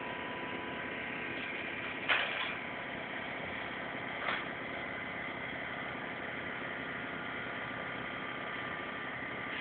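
Steady hum and hiss of background machinery, with a brief rustle or knock about two seconds in and a smaller one about four seconds in.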